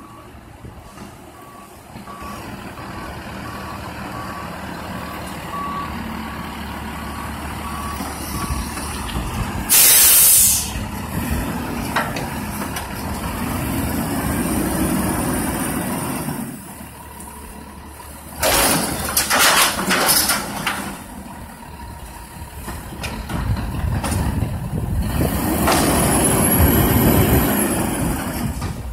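Diesel McNeilus front-loader garbage truck working a container. Its reversing alarm beeps steadily for the first several seconds. The engine then revs up twice to drive the hydraulic lift, each time with a high whine that rises and falls. A loud hiss of air comes about ten seconds in, and a cluster of loud bangs follows around nineteen to twenty seconds.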